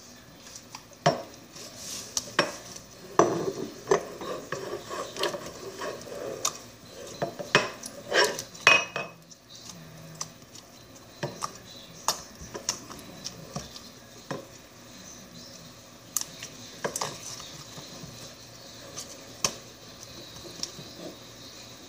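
Slime being poked, pressed and pulled by hand, giving sharp sticky clicks and pops, thickest in the first half and sparser later on.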